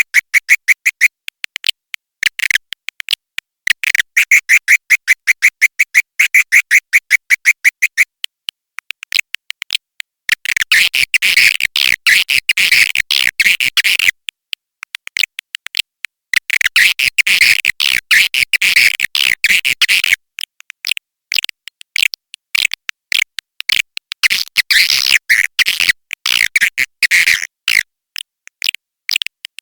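Recorded edible-nest swiftlet calls, a 'suara panggil' lure track used to draw swiftlets into a nest house. They sound as fast trains of dry, high chirping clicks in bursts of a few seconds, with short pauses between.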